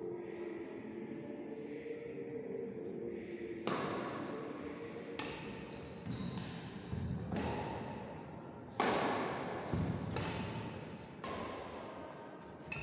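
Badminton rally: rackets striking the shuttlecock in turn, about seven sharp cracks spaced a second or two apart starting a few seconds in, each echoing in a large hall, with short sneaker squeaks on the wooden court.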